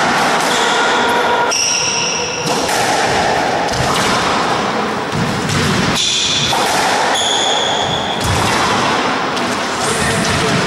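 Squash rally: the ball thudding off the walls and rackets, with a few brief high squeaks of shoes on the wooden court floor, over steady background noise.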